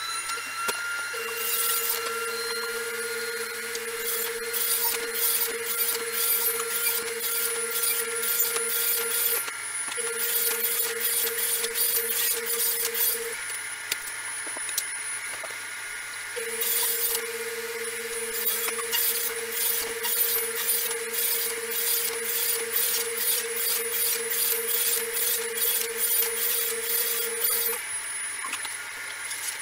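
Ridgid R4520 table saw ripping plywood into strips. The motor whine comes up to speed at the start and then runs steadily. The blade cuts through the sheet in three long passes, with a short break partway through between cuts.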